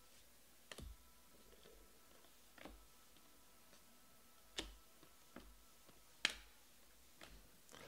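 Faint clicks and flicks of Panini Prizm football cards being thumbed through by hand, about six short ticks spaced a second or so apart over near silence.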